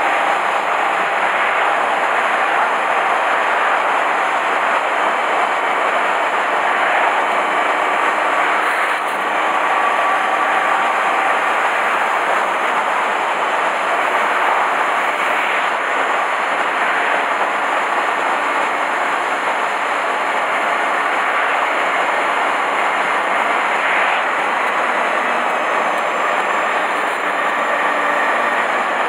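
Motorcycle riding at a steady pace, heard from an onboard camera: a constant rush of wind and engine noise with no clear revving or gear changes.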